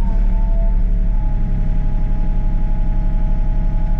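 Excavator's diesel engine running with a steady low rumble under load, with a steady hydraulic whine at two even pitches as a hydraulic function is held.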